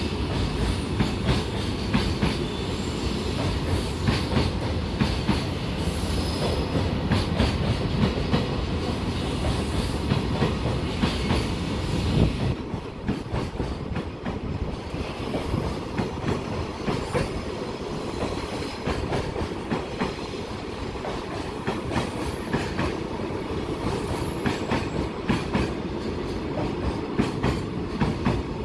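Freight train running past, its wagon wheels clacking over rail joints again and again above a steady rumble; the low rumble eases about twelve seconds in.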